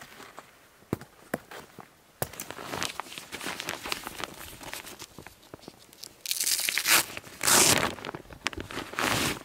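Crinkling, tearing-like rustle of material being handled. A few sharp clicks come in the first two seconds, then a steady rustle with three louder bursts in the last few seconds.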